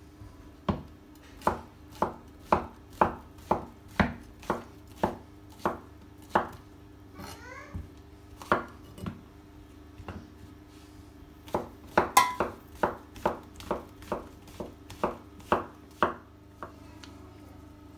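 Chef's knife slicing mushrooms on a wooden cutting board: a run of sharp knocks about two a second, a short pause, then a quicker run with one louder knock that rings briefly.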